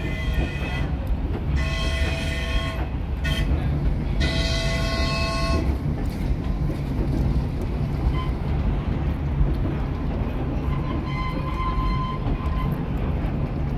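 Steam locomotive's whistle sounding several blasts, the longest about four seconds in, with a fainter blast near the end. Under the whistle is the steady rumble of the open passenger coaches running on the track.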